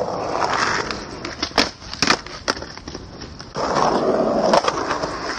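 Skateboard wheels rolling on concrete, a rushing noise that swells twice, with several sharp clacks of the board hitting the ground.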